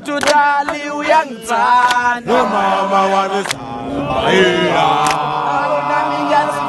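A group of men chanting a song in unison, the voices thickening into a fuller crowd about four seconds in, with a few sharp clicks.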